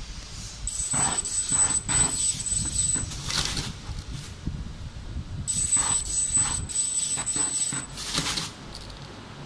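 Roll-to-roll laser die-cutting machine running. A steady high-pitched whine comes on under a second in, stops about three seconds in, and returns for another two and a half seconds, over a rough mechanical hiss that swells irregularly.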